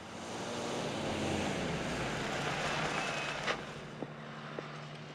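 Jet aircraft passing: its noise swells and then fades, its pitch falling as it goes by. A sharp click comes about three and a half seconds in.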